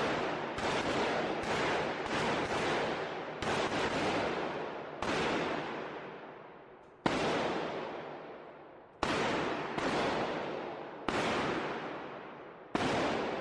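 Gunshots: about ten single shots at uneven intervals, a second or two apart, each followed by a long, echoing fade.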